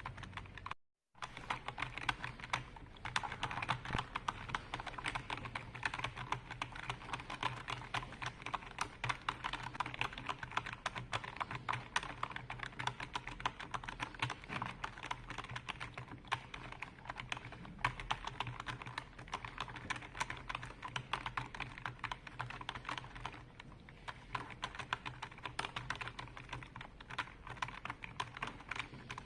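Computer keyboard being typed on quickly and continuously, a dense stream of key clicks that drops out completely for a moment about a second in.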